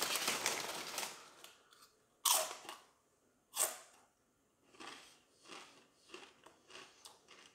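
Corn tortilla chips being bitten and chewed. There are two loud crunching bites about a second and a half apart, then a steady run of softer chewing crunches.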